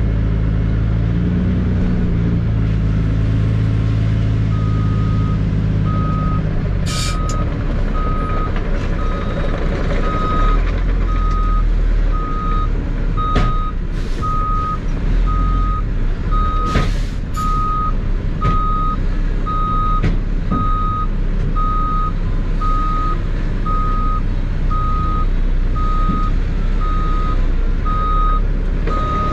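A vehicle's backup alarm beeping at an even pace from about five seconds in, over a heavy diesel dump truck's engine. There are a few short, sharp hisses of air along the way.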